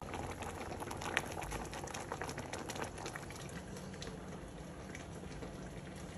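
Pot of salsa verde with chicharrones simmering, bubbling with many small pops and crackles that thin out about halfway through.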